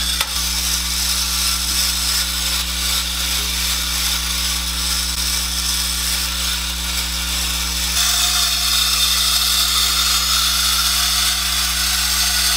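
Spring-driven clockwork motor of a wind-up tin Robot Lilliput toy whirring steadily as it runs. It grows brighter and a little louder about eight seconds in.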